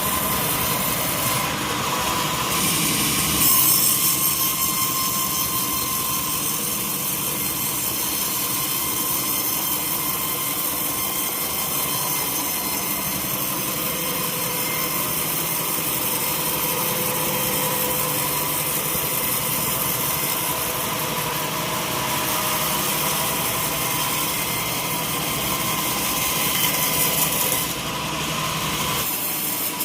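Sawmill saw running steadily through a teak log, a sustained machine whine with a louder swell about three seconds in, easing off near the end.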